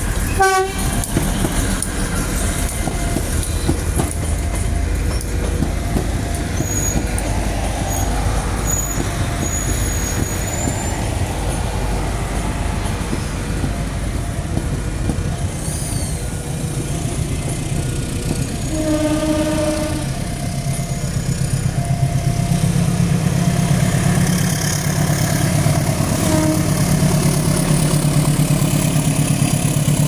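Prameks diesel multiple unit passing at close range, its engine rumble and wheels running on the rails, with a short horn blast right at the start and another horn note about a second long around two-thirds through. In the last part a deep, pulsing diesel engine rumble grows louder as a diesel locomotive draws near.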